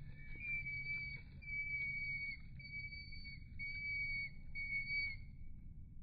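Tufted titmouse whistling a clear note about five times in a row, each note held briefly and ending in a short downward slur.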